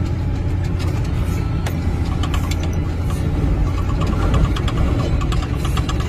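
Blizzard wind and blowing snow rushing over the microphone, a steady low rumble.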